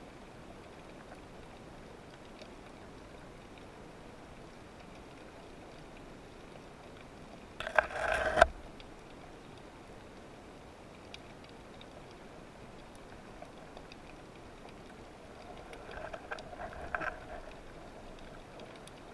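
Underwater ambience picked up by a camera in a waterproof housing: a steady faint hiss with scattered faint ticks. About eight seconds in comes a loud rushing burst lasting about a second, and a weaker rough patch follows around sixteen to seventeen seconds in.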